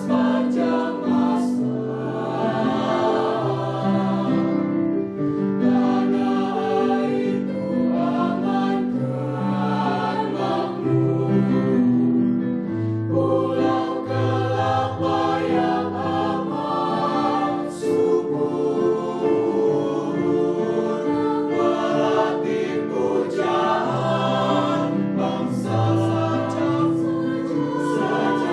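A high school choir singing in several parts, holding notes in harmony that move from chord to chord.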